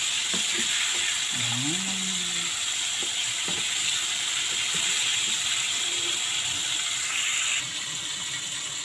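Flour-coated chicken pieces deep-frying in hot oil in a pan, a steady sizzling hiss with crackle, a little quieter for the last second or so.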